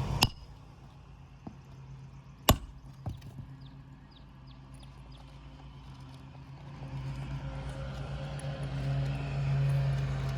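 Hammer striking roofing nails in shingle re-nailing: two sharp strikes, one just after the start and one about two and a half seconds in, with a couple of lighter taps. A low engine hum swells in the second half.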